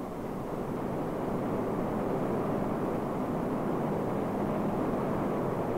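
A steady roar of rushing air, swelling over the first two seconds and then holding level.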